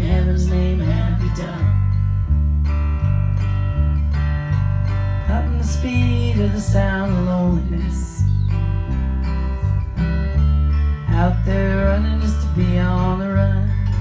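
Live band playing an instrumental break: guitar over a steady bass line, with a lead line whose notes slide up and down.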